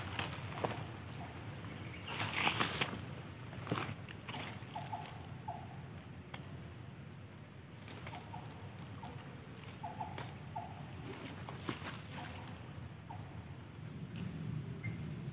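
Forest ambience of insects: a steady high drone, joined for the first few seconds by a rapidly pulsing chirp. From about four seconds in come several short mid-pitched call notes, often in pairs, and a few brief rustles and clicks are scattered through.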